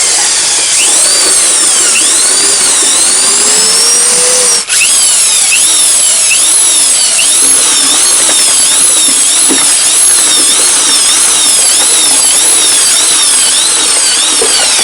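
Ryu RED 16 RE electric mixer drill running with its paddle in a bucket, mixing a sand, cement and water mortar. Its whine rises and falls in a steady rhythm. It cuts out briefly about four and a half seconds in, then runs on.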